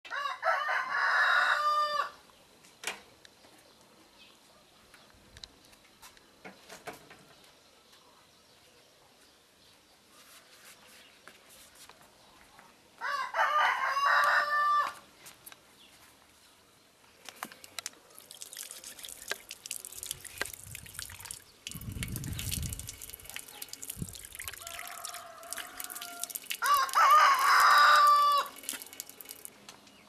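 A rooster crowing three times, each crow about two seconds long: near the start, midway, and near the end. Quieter rustling and scuffing fill the second half.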